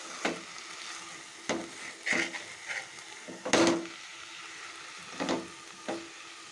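Slotted metal spoon scraping and stirring amaranth greens in a metal kadai, several short scrapes with the loudest a little past the middle, over a faint steady sizzle from the pan.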